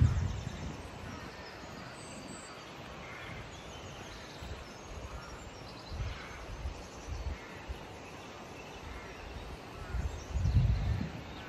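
Crows cawing among other birdsong over a steady outdoor hiss, with low gusts of wind buffeting the microphone at the start and again about ten seconds in.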